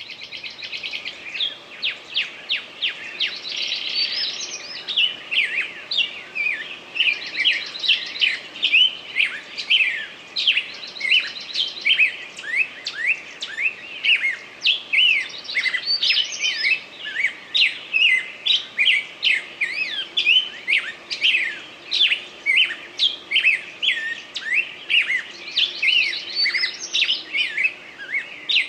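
A dense chorus of songbirds, with many short chirps and trills overlapping one another.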